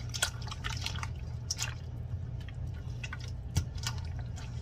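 Wet squelching and irregular dripping clicks as hands rub a raw whole chicken in lemon juice and fish sauce in a stainless steel bowl, over a steady low hum.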